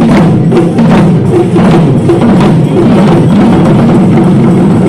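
Traditional Sri Lankan drums beaten by procession drummers: loud, sharp strokes about two to three a second that blur into a denser, steady beat after about three seconds.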